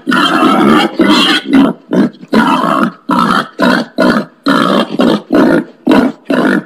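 Wild pig grunting in a steady series of short, rough grunts, about two a second.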